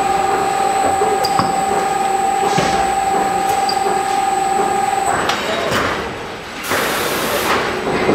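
FARBAL FM5D multi-width film wrapping machine running, with a steady whine that stops about five seconds in. Short hisses follow, then a louder hiss lasting under a second near the end.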